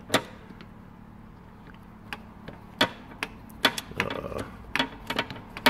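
Metal hand tools, mostly pliers, clinking and clattering against each other in a steel tool chest drawer as they are shuffled around by hand. The clicks are sharp and scattered: a few at first, then several a second in the second half.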